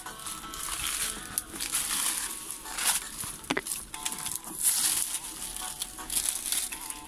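Forest insects shrilling in swelling and fading waves, with dry leaves and twigs crunching underfoot and one sharp click about three and a half seconds in.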